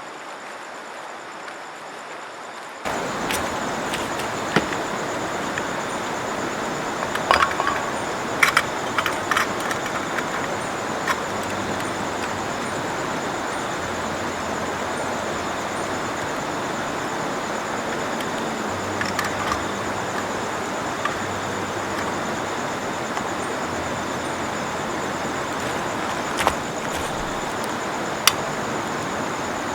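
Steady rush of a flowing river, starting abruptly about three seconds in, with a few scattered sharp clicks and knocks.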